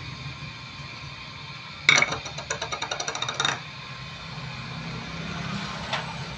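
Peeled garlic cloves clicking and rattling in a small ceramic dish as they are tipped out onto fish in a pan. A sharp clatter about two seconds in is followed by a quick run of clicks lasting about a second and a half, over a steady low hum.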